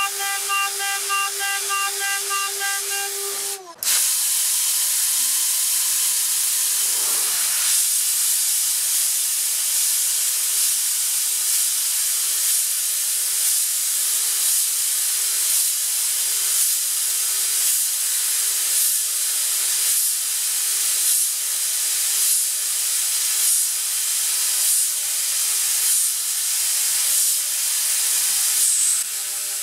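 Mist coolant spray hissing loudly and steadily over the steady hum of a CNC router spindle at 12,000 RPM, as a 1.5 mm drill peck-drills aluminum. A faint pulse repeats a little faster than once a second. For the first three and a half seconds a sped-up machining sound with a steady high tone plays, and it cuts off abruptly.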